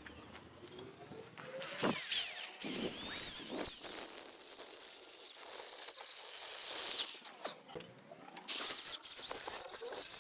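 Power tool working metal, with scraping and clicks and a run of high, wavering squeals that cut off suddenly about seven seconds in.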